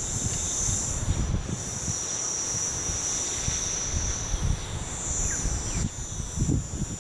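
Quadcopter's electric motors and propellers giving a high, steady whine, with gusty wind rumbling on the microphone.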